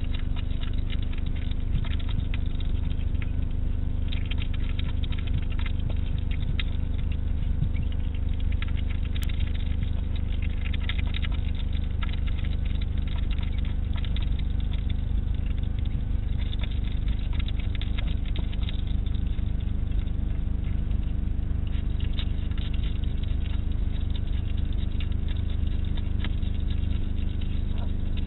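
European hedgehog eating from a dish: a dense, irregular run of small wet clicks and smacks of chewing that comes and goes in clusters, over a steady low hum.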